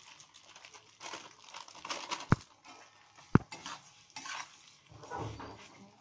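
Metal spatula scraping and stirring vermicelli as it fries in ghee in a steel wok, with two sharp knocks of metal on the pan a little over two seconds in and again about a second later.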